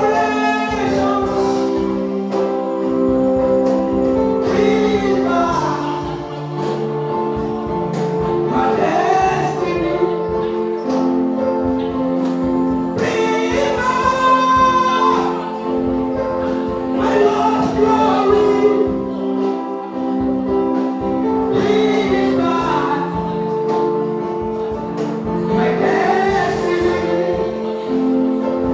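Gospel music: a choir singing over steady held chords.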